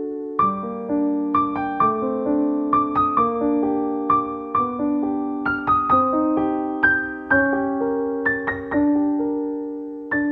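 Background piano music: a slow, gentle melody of single notes and chords, each struck and left to ring out.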